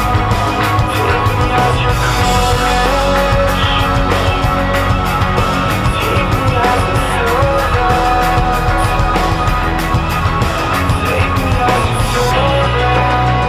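Rock-style background music with a steady drum beat; near the end the drums drop out, leaving a low held part.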